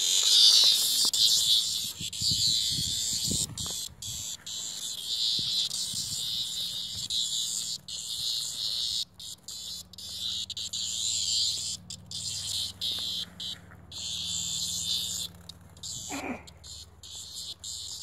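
A cicada's high, harsh distress buzz, broken by many short gaps, as a puppy catches it. Near the end there is a short squeal that falls in pitch.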